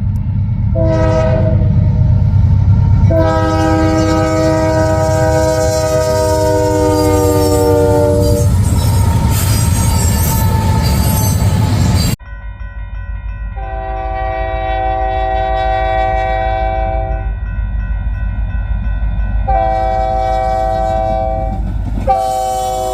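Union Pacific locomotive air horns sounding multi-note chords over the rumble of a passing train. The first gives a short blast, then a long one that drops in pitch near its end. After an abrupt cut, a second horn gives a long blast and a shorter one, and a third blast starts near the end.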